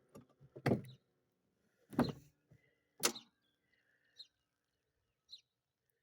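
A lawn mower's starter being worked in three short bursts about a second apart, with no engine catching: the mower won't start.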